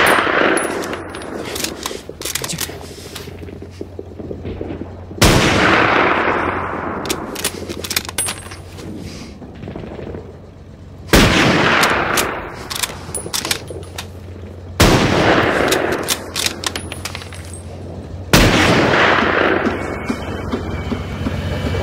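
Bolt-action sniper rifle, an M1903A4 Springfield, fired four times several seconds apart, each shot ringing out in a long echo. Lighter gunfire crackles between the shots over a steady low engine rumble.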